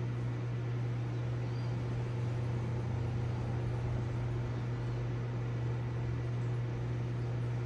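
Reef aquarium pump running: a steady low mechanical hum with a hiss behind it.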